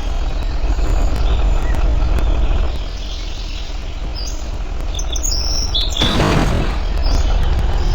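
Highway traffic with a steady low rumble; a vehicle passes with a rising and fading whoosh about six seconds in. Birds chirp faintly over it.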